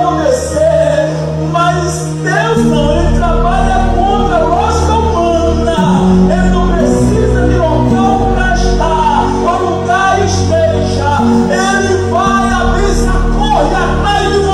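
Church worship music: a voice singing a melody over long held chords, with a deep bass that comes in about two and a half seconds in.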